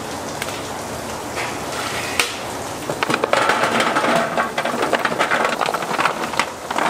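Commercial kitchen work: a steady hiss with scattered clicks and knocks of utensils and containers, turning into busy, dense clattering from about three seconds in.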